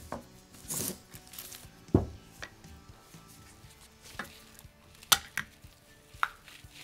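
Handling sounds on a workbench: a few scattered sharp knocks and clicks as an aerosol can is picked up and its cap taken off, with a louder low thump about two seconds in.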